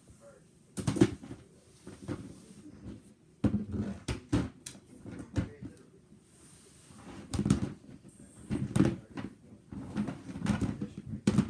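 Plastic toy dinosaur figures clattering and knocking together as they are rummaged through and handled, a string of irregular knocks.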